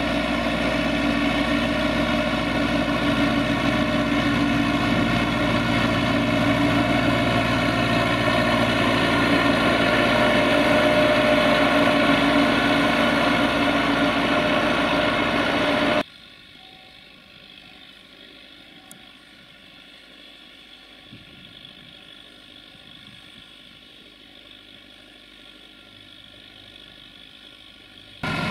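Belarus MTZ 892.2 tractor's four-cylinder diesel engine running steadily under load while pulling a plough. About two-thirds of the way through it cuts off abruptly to a faint, even outdoor background.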